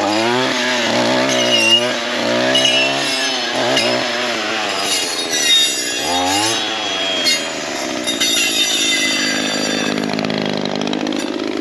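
Gas weed eater fitted with a saw blade, its engine revving up and down over and over as the blade cuts into privet and wisteria, then holding a steadier speed and dropping briefly near the end.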